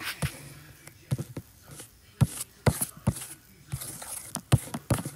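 A dozen or so irregular taps and clicks on a tablet's touchscreen as the drawing app is worked.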